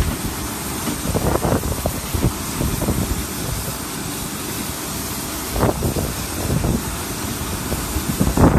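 Wind buffeting the microphone in irregular low gusts, stronger a second or so in and again near the six-second mark, over a steady rushing hiss of airport background noise.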